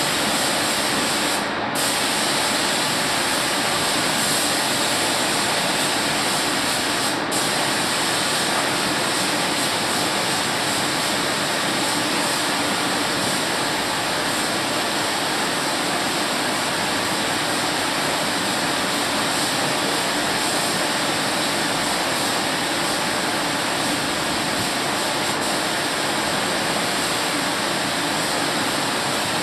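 Compressed-air paint spray gun hissing steadily as it sprays, with two very brief breaks near the start.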